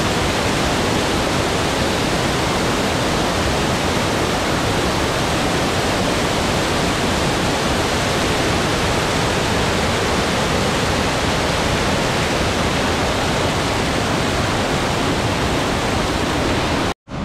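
Steady loud rushing of a waterfall, whitewater tumbling down a rocky cascade. The sound cuts out abruptly for a moment just before the end.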